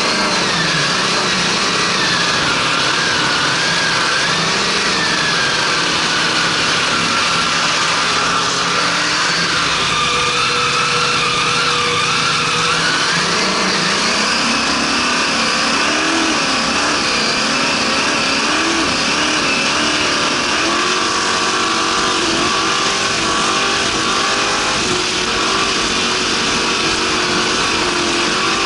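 Racing power boat's engine running hard at speed, its pitch wavering up and down as the throttle and load on the hull shift, over a constant loud rush of wind and water.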